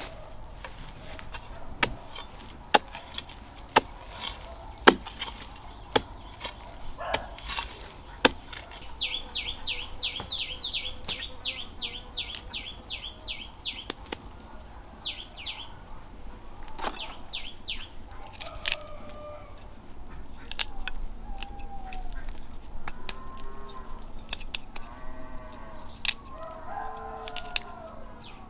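Farmyard sounds: sharp knocks about once a second for the first eight seconds, then a rapid run of high chirps for about five seconds. Chickens cluck through the last part.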